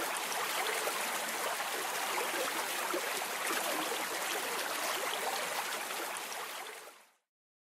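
Steady rushing hiss of flowing river water that fades out about seven seconds in.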